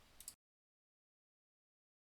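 Near silence: faint room tone that drops to complete digital silence about a third of a second in.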